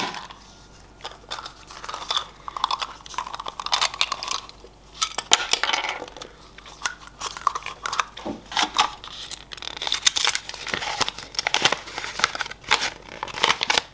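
Clicks of a Kinder Surprise's yellow plastic toy capsule being handled and pulled open, then the crinkle and tear of the thin wrapper holding the toy inside.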